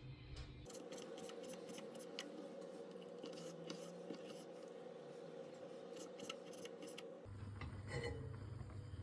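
Food being cut in the kitchen: a run of quick, irregular clicks and snips of a blade going through vegetables or chicken, stopping abruptly about seven seconds in.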